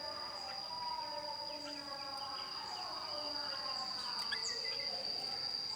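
A steady high-pitched insect trill runs throughout, with scattered short chirps and sliding calls from small birds over it.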